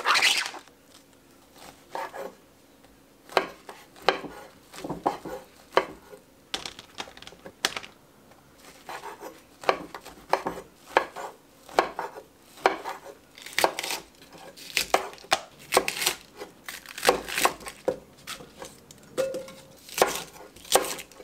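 Plastic film torn off a tray of fried tofu puffs at the start. Then a chef's knife cuts the tofu puffs and then baby bok choy on a wooden cutting board, with sharp knocks of the blade on the board about one or two a second, coming faster in the second half.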